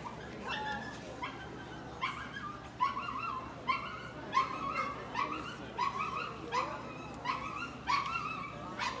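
A dog barking over and over in short, high-pitched yips, roughly one every 0.7 seconds, each one sweeping quickly upward.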